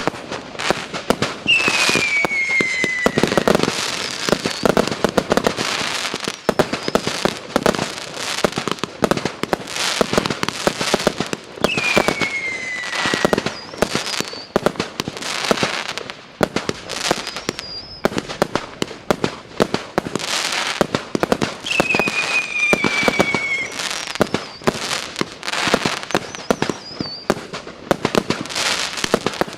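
A 100-shot, 1.2-inch fireworks cake firing in rapid, unbroken succession of launches and bursts. Three times, about ten seconds apart, a whistle falls in pitch over about two seconds.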